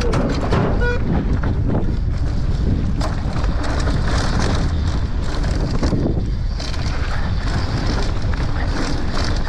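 Wind rushing over the camera microphone as an enduro mountain bike descends a rough dirt trail at speed, its tyres rolling over the dirt and the bike rattling over bumps. A short beep about a second in.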